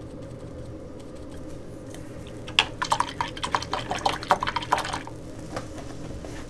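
A paintbrush being rinsed in water: a quick run of small liquid splashes and clicks about halfway through, lasting a couple of seconds, over a steady low hum.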